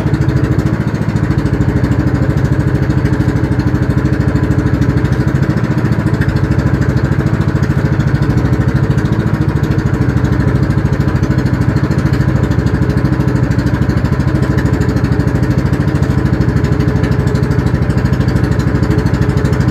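A boat's engine running steadily, an even, unchanging drone.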